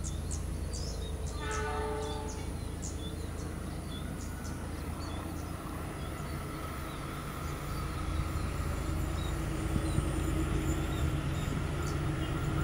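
Distant train approaching: a low rumble that grows steadily louder over the second half.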